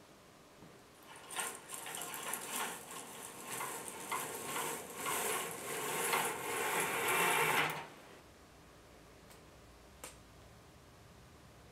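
Stage curtains being drawn open along their rail: a swishing, rattling sound that starts about a second in, grows louder and then stops suddenly about two-thirds of the way through.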